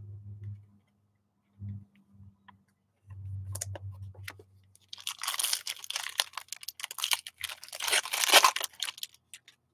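Soft bumps of trading cards being handled on the desk, then from about five seconds in a long crackling crinkle of a plastic card-pack wrapper being torn open, loudest near the end.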